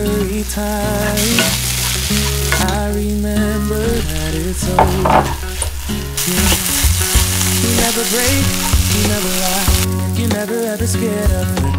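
Chopped zucchini frying in butter in a pan, sizzling as it is stirred and scraped with a wooden spoon. The hiss swells louder about a second in and again from about six to ten seconds.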